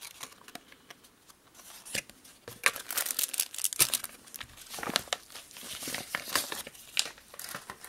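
Packaging crinkling and rustling as a pocket knife is unwrapped, with a quick run of sharp crackles and clicks from about two seconds in.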